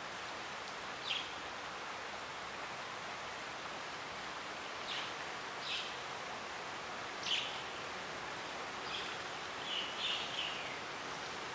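Steady outdoor hiss with a handful of short, high chirps from songbirds calling nearby, spread through the span with the last few coming close together near the end.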